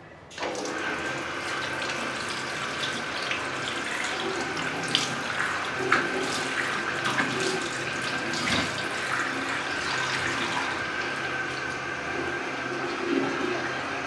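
A washbasin tap running, starting about half a second in, with irregular splashes as hands scoop water from it.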